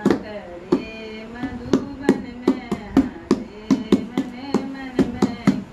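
A child slapping the top of a taped cardboard box with her hands like a drum, about three slaps a second, with a voice singing along.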